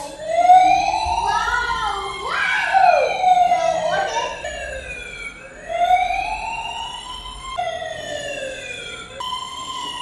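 Toy RC fire truck's electronic siren wailing, rising and falling in pitch over and over, broken off abruptly a few times.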